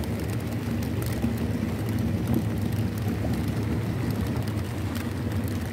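The 75-horsepower outboard motor of an open fibreglass speedboat running steadily with a low drone, with water hiss and scattered ticks of light rain over it.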